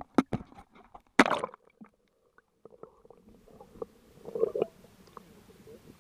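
Water splashing and knocking at the surface, loudest a little over a second in, then muffled underwater gurgling and sloshing as a dog paddles close past the submerged camera, swelling briefly past the middle.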